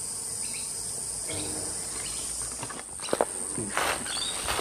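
Steady high-pitched chorus of insects. From about three seconds in there are some rustling and a few sharp knocks.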